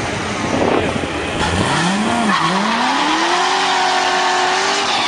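Chevrolet Corvette V8 revving up about a second and a half in, dipping once, then climbing and holding at high revs while the rear tyres spin in a burnout.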